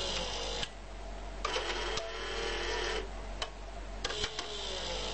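Small geared DC motors of an animated HO scale model excavator whirring in three short runs, each starting and stopping with a click as the motor reaches its limit switch.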